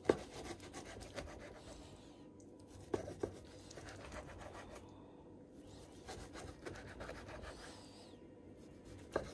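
Large knife sawing back and forth through a seared steak on a wooden cutting board: several stretches of quick scraping strokes, with a few sharp taps as the blade meets the board.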